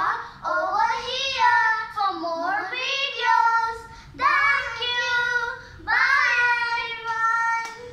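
Two young girls singing a children's rhyme together, in about four phrases with short breaks between them, the notes of the last phrases held longer.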